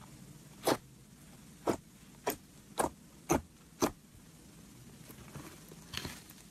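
Green glitter slime being pressed with fingertips, giving six short, sharp pops, most about half a second apart. Fainter squishes follow near the end as the slime is pulled and stretched.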